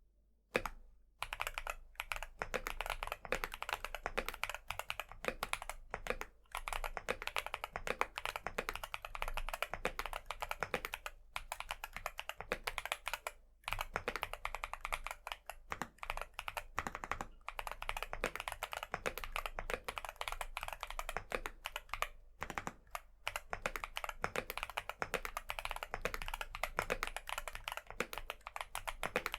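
Typing on a mechanical keyboard with MMD Princess 48g tactile switches, an aluminium plate and PBT keycaps. A fast, continuous run of keystrokes starts about half a second in and pauses only briefly a couple of times.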